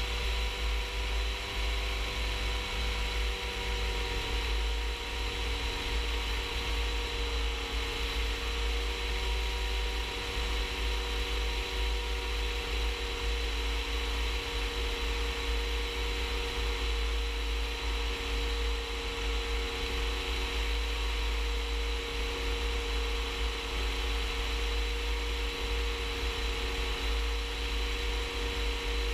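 Rans S-14 light aircraft's engine droning steadily in flight, with a strong low wind rumble on the microphone.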